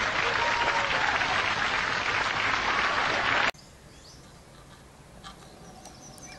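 Studio audience applause that cuts off abruptly about three and a half seconds in, followed by quiet outdoor ambience with faint bird chirps.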